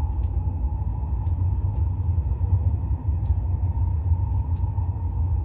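Steady low rumble of a Tohoku Shinkansen Hayabusa bullet train running, heard inside the passenger cabin, with a faint steady whine above it and a few faint ticks.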